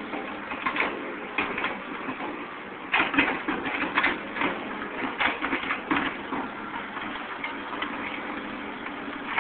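Caterpillar 235 excavator working: the diesel engine and hydraulic pump run steadily under repeated, irregular metal clangs from the bucket linkage. The pins are undersized, which lets the linkage knock as it moves.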